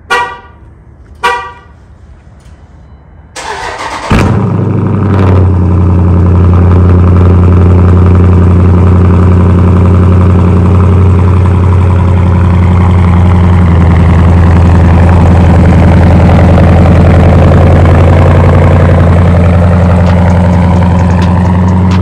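Two short car-horn chirps, then the Dodge Durango SRT's 6.4-litre HEMI V8 cranks, catches about four seconds in with a brief rev flare, and settles into a steady, loud idle through its exhaust. It is a cold start on a cold night.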